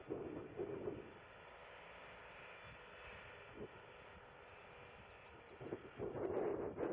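Steady rushing jet engine noise from a Boeing 747-400 at taxi. Gusts of wind buffet the microphone in the first second and again near the end.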